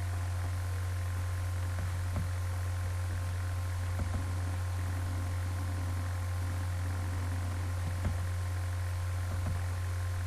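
Steady low hum, with a few faint soft knocks about two, four and eight seconds in.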